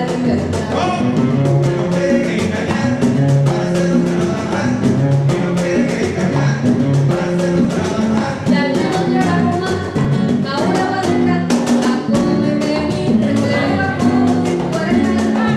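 Live Afro-Peruvian band playing: a woman singing over upright bass and percussion, with frequent drum strikes.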